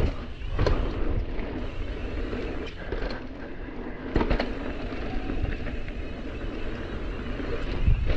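Mountain bike rolling fast down a dirt trail: a steady rush of tyre noise and wind buffeting the mic, broken by sharp clattering knocks as the bike hits bumps, about four times, including once under a second in, twice around four seconds in and once near the end.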